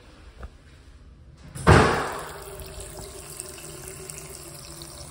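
Automatic sensor faucet turning on: a sudden loud gush about one and a half seconds in, then water running steadily into the sink basin.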